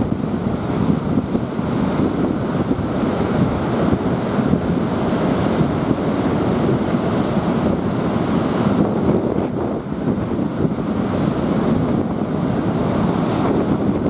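Strong wind blowing across the microphone in gusts, over the continuous rush of storm waves breaking and washing up a sandy beach.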